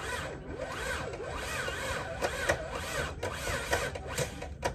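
Twin-turbo 6.0 L LS V8 in a Pontiac GTO, just cold-started after sitting for about two months, being given gas in repeated blips so it keeps running instead of stalling; the engine note rises and falls over and over, then settles lower near the end. The owner blames the rough start on the tune, which is still set for an LS1 with a cam.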